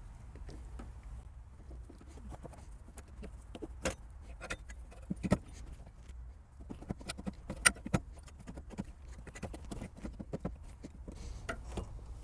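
Irregular knocks, clicks and scrapes of a replacement car alternator being worked down by hand into a tight engine bay, bumping metal brackets and rubbing hoses, over a steady low rumble.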